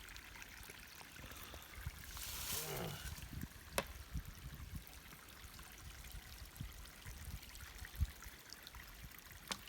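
Small trail-side spring or stream trickling steadily, with a couple of sharp clicks.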